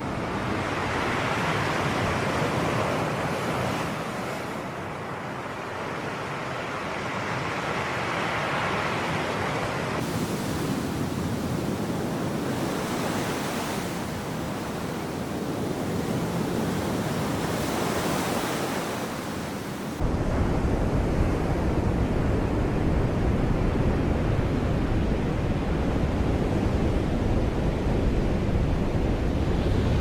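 Sea waves surging and washing in slow swells. About two-thirds of the way through, the sound changes suddenly to a louder stretch with a heavy low rumble of wind on the microphone.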